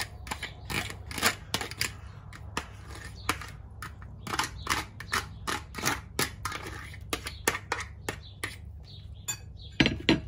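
A metal fork scraping and tapping against a plastic colander as drained canned mixed vegetables are pushed out into a bowl: a run of irregular clicks and taps, two or three a second, with a louder double knock near the end.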